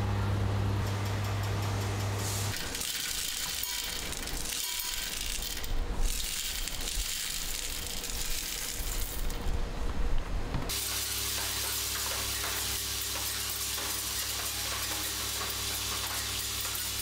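Steel screws poured from a perforated metal scoop into a vibratory bowl feeder, clattering unevenly, loudest about six and ten seconds in. Before and after the pour, the electromagnetic vibratory feeder hums steadily while screws rattle finely as they jostle along its linear vibrating track.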